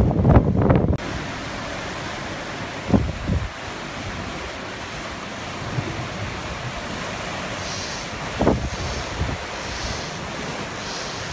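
Steady rush of sea and wake water around a sailing catamaran under way in choppy water, with wind buffeting the microphone: hardest in the first second, then in two brief gusts.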